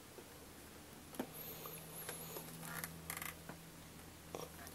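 Faint clicks and knocks of a plastic clock radio cassette player's case being handled and turned around on a bedspread: one about a second in, a cluster around three seconds in, and another near the end.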